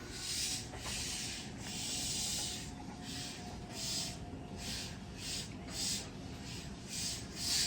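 A train's compressed-air system hissing in about a dozen short, irregular bursts of varying length.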